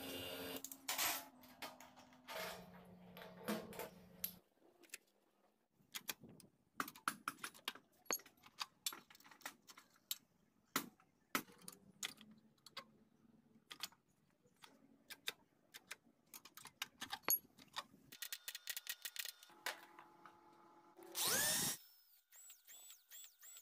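Bench grinder motor running while a small steel plate is ground against its wheel, then a long run of sharp metal clinks and knocks as steel parts are handled and fitted. Near the end an electric drill bores holes through the sheet steel in a loud burst of about a second, its pitch rising and falling.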